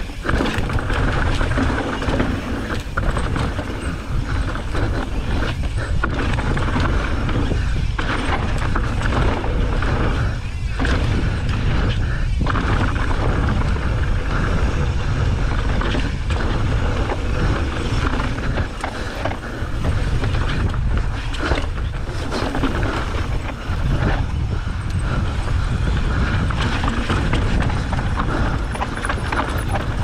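Mountain bike descending a rocky dirt trail, heard through an action camera's microphone: steady wind rumble on the mic over tyres rolling on dirt and rock and the bike's parts clattering over bumps.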